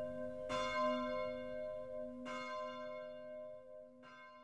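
A bell struck three times, about two seconds apart, each stroke ringing on and slowly dying away, the last stroke softer.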